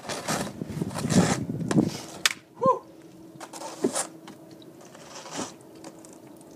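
Scuffing, crunching footsteps and knocks as a barefoot person steps onto a plastic step stool and climbs up onto a snowy wooden deck railing, with a brief squeak a few seconds in.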